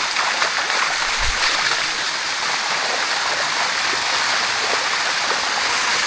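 Waterfall water rushing steadily over rocks. There is a brief low bump about a second in.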